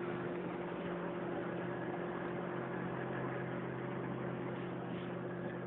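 Boat's outboard motor running steadily at low speed, a constant hum with several fixed tones.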